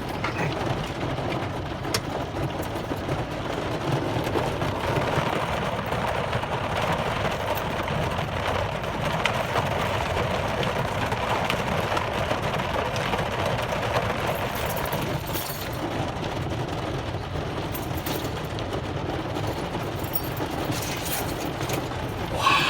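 Very heavy rain drumming steadily on a vehicle, a dense, even patter of many small impacts heard from inside it.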